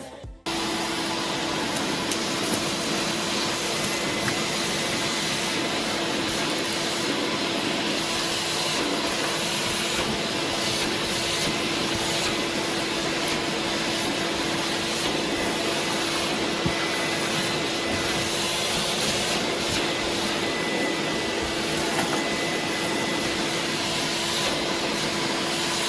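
Vacuum cleaner running steadily: an even rushing noise with a constant hum-whine. It starts about half a second in.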